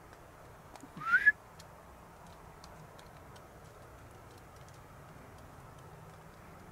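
A person whistles once, a short rising whistle about a second in, to make a walking deer stop and stand.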